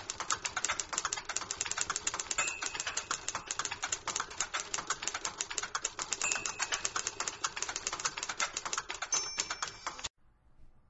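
Rapid typing on a mechanical typewriter: a fast, even run of key strikes, several a second, that stops abruptly near the end.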